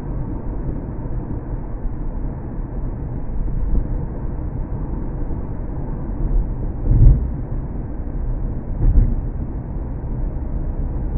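Steady low rumble of a car being driven, engine and tyre noise heard inside the cabin, with two louder low thumps about seven and nine seconds in.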